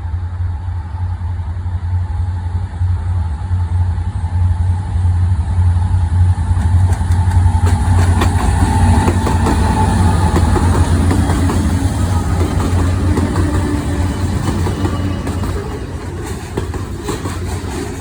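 Diesel locomotives of a Norfolk Southern train running, a deep engine rumble that builds over the first several seconds as the train comes closer, then holds steady. Faint rail clicks begin near the end.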